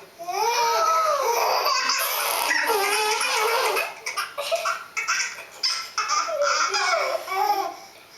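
Baby laughing hard: a long unbroken stretch of high, rising-and-falling laughter, then shorter bursts of laughs that die away near the end.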